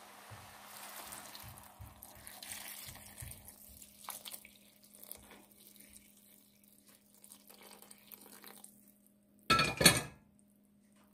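Water pouring from a metal pot into a pan of sliced sponge gourd and chicken, splashing for a few seconds and then trickling off more faintly. Near the end comes a short, loud clatter of metal cookware, the loudest sound.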